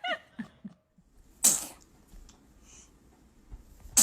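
A baby sneezing once: a short, sharp burst about a second and a half in.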